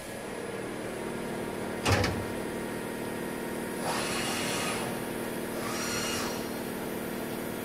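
Deckel Maho DMU 80 T five-axis machining center running with a steady hum. About two seconds in there is a single sharp clunk as the cover over the side compartment shuts. Then come two short hissing passes while the spindle head travels.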